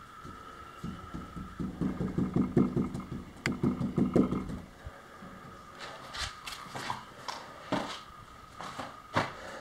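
A wooden stick worked in a plastic cup standing on a plywood floor: a few seconds of rhythmic scraping and creaking. Then a scatter of sharp knocks and footsteps.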